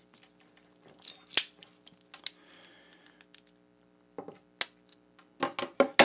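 Hand crimping pliers clicking and snapping as a pin terminal is crimped onto a wire and handled: irregular sharp clicks, the loudest about a second and a half in and a quick run of them near the end.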